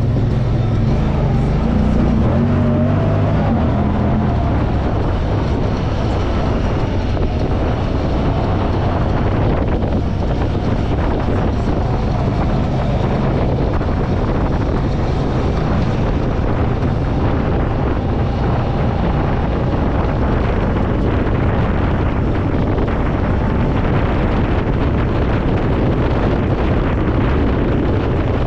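Off-road vehicle engine running steadily while riding a trail, with wind and trail noise on the microphone.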